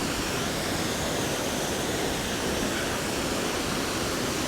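Düden Waterfall's falling water: a steady, even rushing noise.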